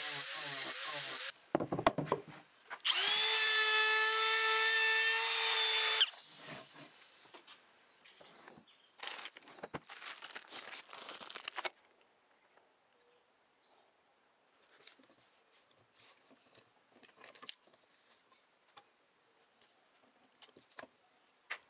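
A DeWalt grinder fitted with a sanding pad runs against a wooden board for about a second, then clattering, then about three seconds of a power tool running with a steady whine that cuts off suddenly. After that come rustling and light handling taps over a faint steady high-pitched buzz.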